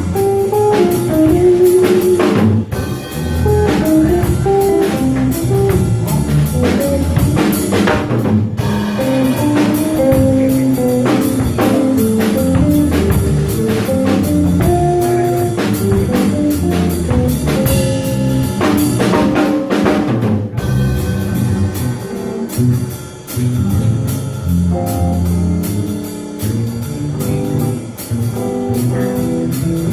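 A small jazz band playing: a drum kit with busy cymbal strokes keeps time under bass and moving melodic lines.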